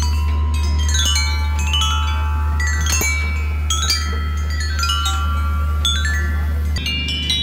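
Playground metallophone of metal tubes and bars struck with a mallet: quick runs of ringing notes swept up and down the scale, each note ringing on. A steady low hum runs underneath and drops off near the end.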